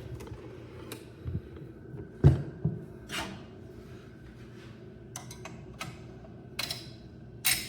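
Stock CPU cooler being unfastened and lifted off a PC motherboard by hand: scattered clicks and knocks of plastic and metal, the loudest a thump a couple of seconds in, with short rustling scrapes, the last near the end.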